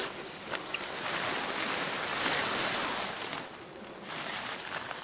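Heavy tent fabric of a Bereg UP-2 hot tent rustling and crinkling as it is hauled and shifted by hand, dying down about three seconds in.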